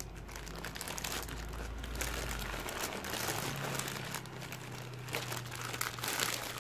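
Clear plastic saree packaging and a paper photo card crinkling and rustling as hands handle them, with many small crackles.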